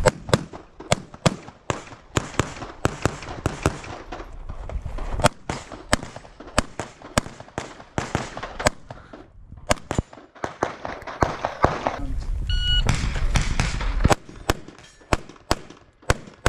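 Handgun fired in quick strings of shots during a practical-shooting stage, the shots a third to half a second apart with a brief pause partway through. About two-thirds of the way in, a short electronic beep from a shot timer signals the start of the next string.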